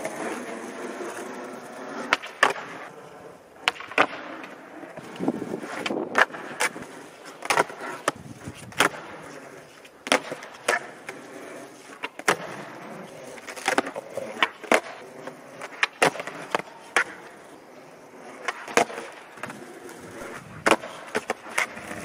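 Skateboard wheels rolling on rough asphalt, broken by repeated sharp wooden clacks as the tail pops and the board lands. The clacks often come in close pairs, pop then landing, during repeated flatground flip tricks such as kickflips and ollies.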